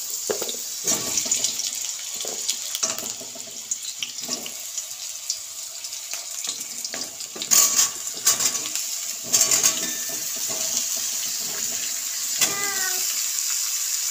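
Raw potato and pumpkin pieces dropped into hot mustard oil in an aluminium kadai: the oil sizzles with a steady high hiss, broken by irregular knocks and clatter as the pieces land, loudest about eight and nine and a half seconds in. A short squeak comes near the end.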